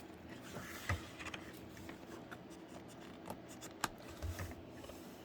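Faint rustling of paper as a printed manual is handled and its pages turned, with a few light clicks.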